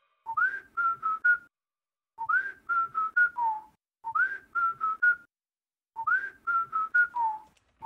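A short whistled tune repeated four times, about every two seconds: each phrase is a low note that slides up into three quick higher notes and then drops back down.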